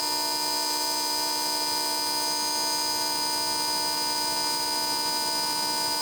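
A steady electrical buzz or whine made of several fixed pitches, even in level throughout, with none of the low rumble of the running compressor.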